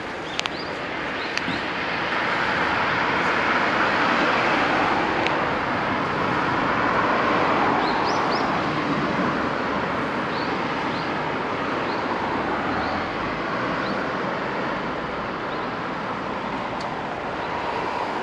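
Road traffic passing a junction: a steady rush of car tyres and engines that swells over the first several seconds, then eases off somewhat.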